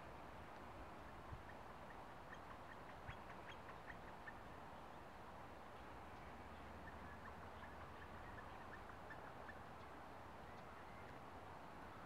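Flickers calling faintly during courtship: short, soft notes in loose series, a few about two to four seconds in and a longer run from about six to nine and a half seconds, over a low steady background hiss.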